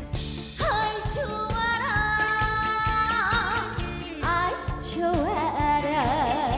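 Woman singing a Korean trot song over a band accompaniment with a steady beat. She holds long notes with a wide, wavering vibrato, entering about half a second in, with a short break near the middle before the next phrase.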